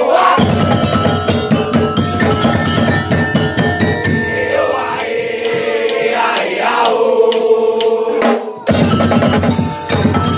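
Madurese daul percussion ensemble playing: fast, dense drumming under a sliding melody line, with a brief break in the drums about eight and a half seconds in.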